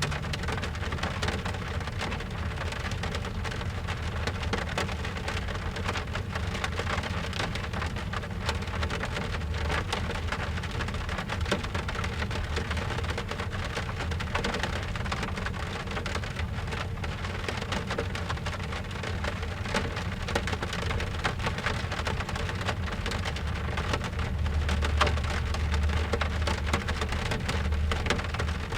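Rain falling on a car's roof and glass, heard from inside the cabin: a dense, steady patter of drops over a low rumble that swells near the end.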